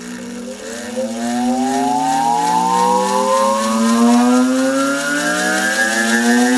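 Antique Allis-Chalmers 10 hp electric motor starting up on 110-volt single-phase power through a capacitor bank: a steady electrical hum under a whine of several tones that climbs slowly and evenly as the rotor gathers speed, growing louder about a second in.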